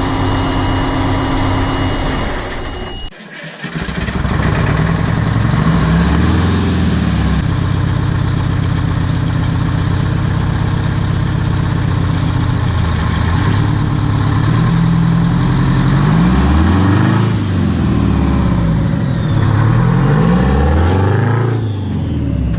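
Detroit Diesel 8V92 two-stroke V8 in a Peterbilt truck, running steadily. A steady high tone over it stops about three seconds in, where the sound briefly drops away. After that the engine is revved up and back down several times.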